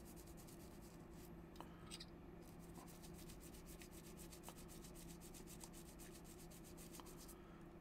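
Faint rubbing as a watch back plate is cleaned and wiped by hand, with a few faint ticks, over a steady low hum.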